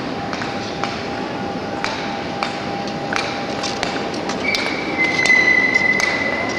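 Ice speed-skating rink ambience: a steady hall hum with scattered sharp clicks and knocks, under a faint steady tone. Past the middle a high steady tone sets in and runs for about two seconds.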